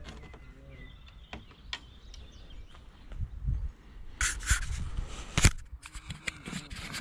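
Handling noise from a moving action camera: low wind rumble on the microphone, scattered clicks, a burst of rustling from about four seconds in and one sharp knock at about five and a half seconds.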